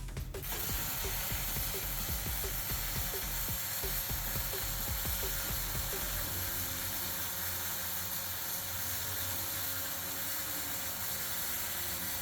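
Robotic MIG welding arc laying a bead: a steady, even hiss that starts suddenly about half a second in and keeps going without a break.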